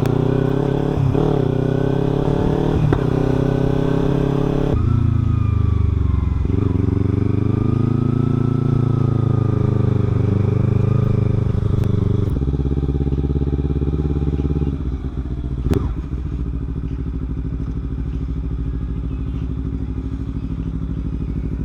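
Kawasaki Ninja 300's parallel-twin engine running under way, its pitch rising and falling with the throttle and stepping abruptly about five and twelve seconds in, as with gear changes. It settles to a steadier, slightly quieter note after about fifteen seconds, with a brief click just after.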